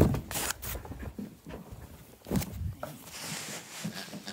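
A cardboard box of dog toys set down with a loud thump, then rustling and soft knocks as a Border Collie noses through the toys, with a second heavier knock about two and a half seconds in.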